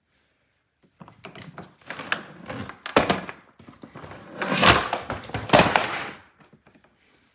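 Hard-shell carry-on suitcase being handled: an irregular run of clicks, scrapes and knocks, loudest about three seconds and five seconds in, stopping shortly before the end.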